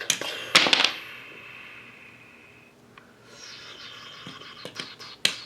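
Hard toy pieces knocking and clattering together: a sharp clack at the start, a louder cluster of clacks about half a second in with a ringing rattle after it, then a lighter rattle and one more sharp clack near the end.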